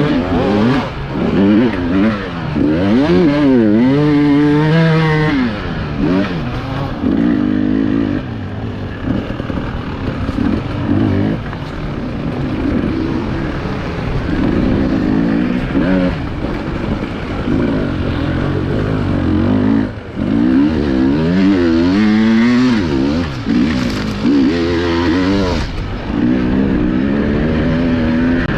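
FPV racing drone's motors and propellers whining, the pitch swooping up and down again and again as the throttle changes.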